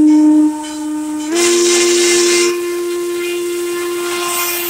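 Steam whistle of 2-6-6-2 Mallet steam locomotive 1309 blowing one long blast on a steady pitch. About a second in it swells louder with a rush of steam hiss, then eases back for the rest.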